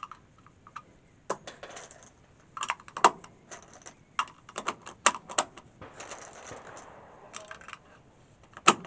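Metallic clicks and clinks of 7.62 mm rifle cartridges being handled and loaded, scattered through several seconds, with a sharper clack near the end.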